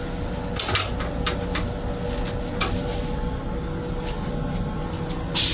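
Steady low rumble and hum of an M7 railcar's restroom, with a few short papery crackles as toilet paper is handled and dropped into the stainless-steel bowl. A sudden loud hiss starts just before the end.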